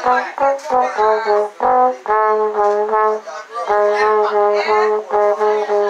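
Trombone played solo, a melody of separate tongued notes: a run of short notes over the first couple of seconds, then longer held notes.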